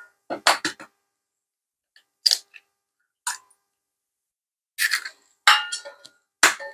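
Eggs being cracked against the rim of a mixing bowl: a series of sharp taps and clinks with a brief ring, coming in small clusters every second or so.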